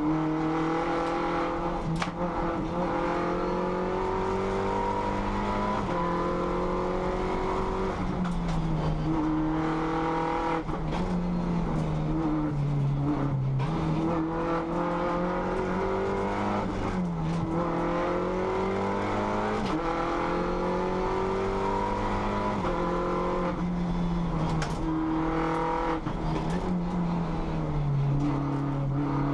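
Race car engine heard from inside the cabin, revving up hard and dropping sharply again and again as gears are changed, and sliding down when the driver backs off for corners. Occasional sharp knocks cut across it.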